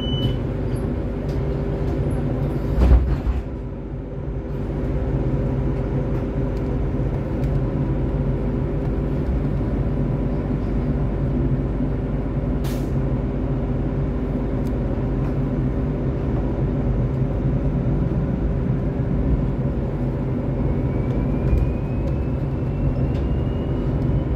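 Solaris Trollino 12 IV trolleybus driving: a steady electric drive hum over road noise, with a short loud burst about three seconds in. Near the end a whine rises slowly in pitch.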